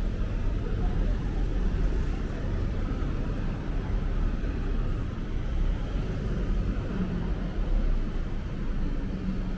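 City street traffic ambience: a steady, low rumble of passing vehicles.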